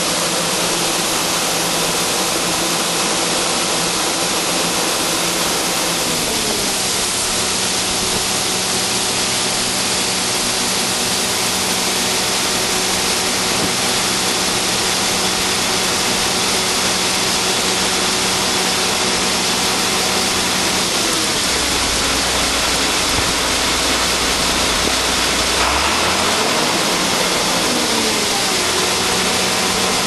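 Weigh wagon's auger unloading soybeans, a steady rushing hiss of pouring grain over an engine's hum. The engine's pitch drops about six seconds in and changes again in the last few seconds.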